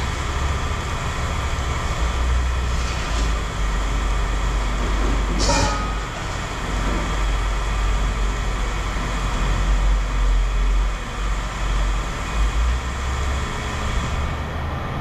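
A vehicle engine running steadily, with a short sharp noise about five and a half seconds in.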